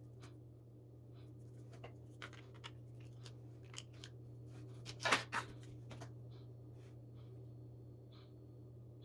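Small clicks and scrapes of hands fitting and pressing together the pieces of a truck emblem during reassembly, with a louder rustling scrape about five seconds in, over a steady low hum.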